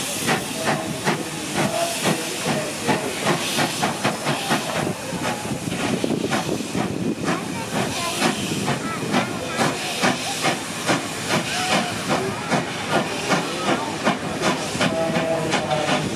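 Steam locomotive 3016 pulling away, its exhaust chuffing in a regular beat that quickens towards the end, with steam hissing throughout.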